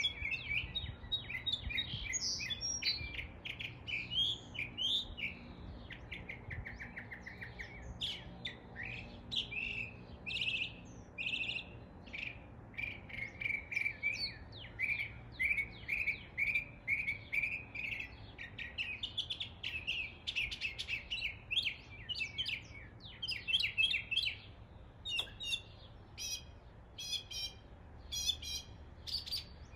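Northern mockingbird singing a continuous run of varied phrases, each repeated in quick series before switching to the next, mimicking the calls of other local birds.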